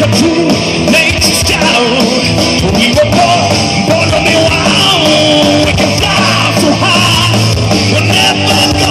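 Live rock band playing loudly through a PA: electric guitars, bass guitar and drum kit.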